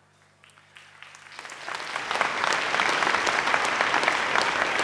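Audience applause, starting as a few scattered claps about a second in and swelling into full, steady applause by about two seconds in.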